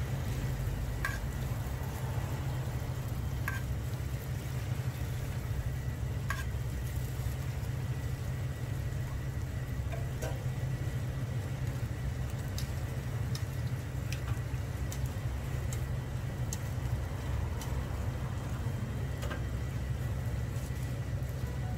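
Glutinous rice hotteok frying in shallow oil on a flat griddle: a steady sizzle with scattered sharp clicks. Underneath runs a steady low rumble.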